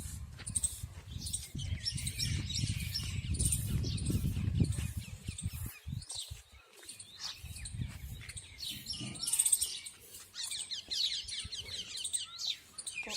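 A crowd of small birds chirping and twittering continuously in quick, overlapping calls. Under them is a low rumbling noise that stops abruptly about six seconds in and briefly returns a couple of seconds later.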